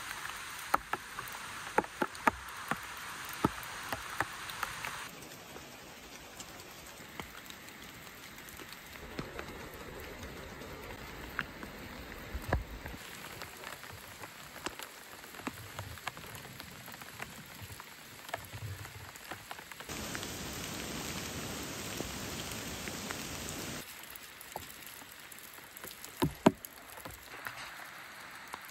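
Steady rain falling, with scattered sharp, close drops striking near the microphone. The rain sound shifts abruptly several times, as if separate recordings were cut together.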